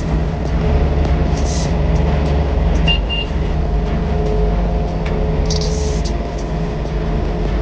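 Yanmar Vio55 mini excavator at work, its diesel engine running steadily under load. Brief high hissing rushes come twice, about a second and a half in and again around five and a half seconds in, and two short beeps sound about three seconds in.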